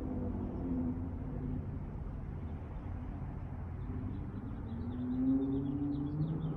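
Dodge Charger GT with Flowmaster 40 dual exhausts, rumbling low and steady, then revving up. The exhaust note rises in pitch about four and a half seconds in and starts falling again near the end.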